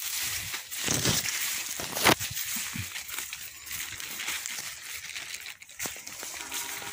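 Footsteps brushing and crunching through dry leaves and cassava stalks, with one sharp snap about two seconds in.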